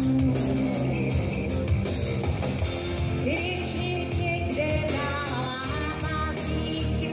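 Live rock band playing, with drums and guitar, and a woman's voice singing a melody from about three seconds in.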